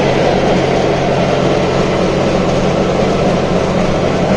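Datsun 240Z's 2.4-litre straight-six running steadily at cruising speed, heard inside the cabin with steady road and wind noise.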